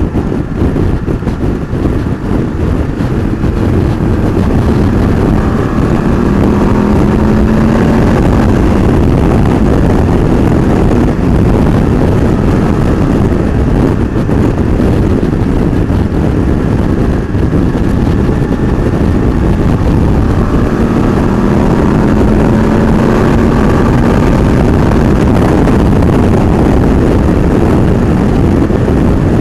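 Heavy wind noise on the microphone of a motorcycle at road speed, over the BMW F850GS Adventure's parallel-twin engine, whose note rises twice as the bike pulls.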